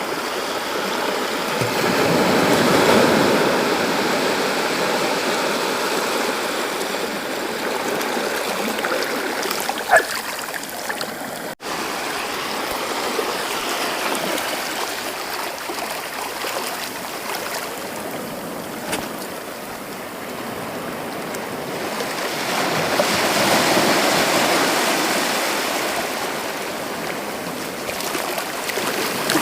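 Sea waves breaking and washing up a beach: a continuous rush of surf that swells louder about three seconds in and again about two-thirds of the way through. A short click comes about ten seconds in, followed by a brief gap in the sound.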